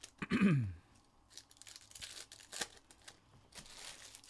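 Foil trading-card pack wrappers being torn and crinkled open in several short rustling spells. Near the start there is a brief vocal sound falling in pitch, like a sigh or hum, and it is the loudest thing.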